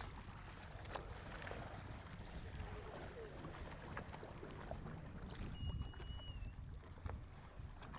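Water rushing and splashing along the wooden hull of a moving river longboat, with wind buffeting the microphone. A brief thin high whistle sounds about five and a half seconds in.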